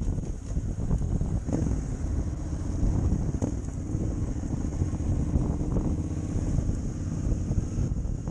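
Wind buffeting the microphone of a camera on a moving motorcycle, with the bike's engine running underneath; a steady engine note comes through from about halfway in.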